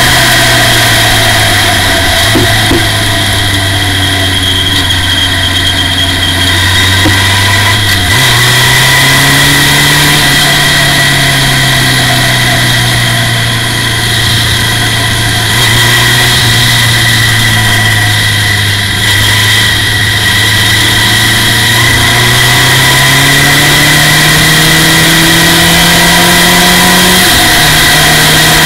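Formula Ford race car's engine heard from the cockpit while lapping, its pitch rising and falling with the throttle through the corners, with a few sudden steps in pitch at gear changes.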